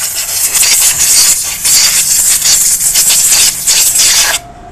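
Sandpaper rubbed back and forth over the rear drum-brake shoes of a Hero Splendor BS6: loud, uneven rasping strokes, roughening the hardened shoe lining that is causing brake noise. It cuts off suddenly near the end.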